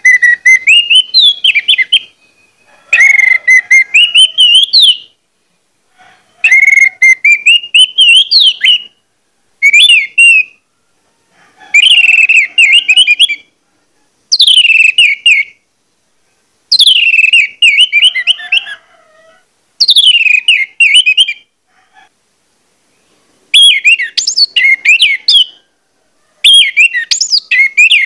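Orange-headed thrush (anis merah) singing loudly in full song: about ten phrases, each a one-to-two-second run of quick rising and falling whistled notes, separated by short silences.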